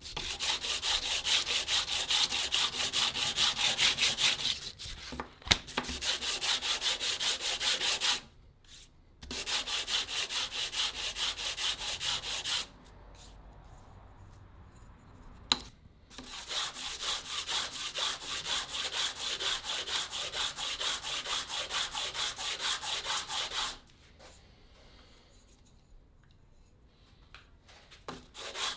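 Sandpaper rubbing over a wooden cleaver handle in rapid back-and-forth strokes, in four bouts with short pauses between.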